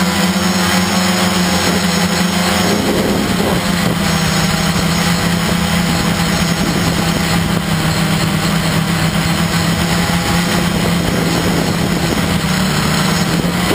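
Electric motors and propellers of a radio-controlled multirotor carrying the camera, a steady hum. The pitch wavers briefly about three seconds in and again near the end as the motor speeds shift.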